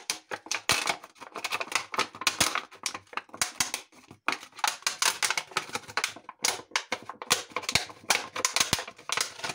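Scissors cutting a folded plastic drink bottle in half: a dense, irregular run of snips and crackles of the plastic, several a second.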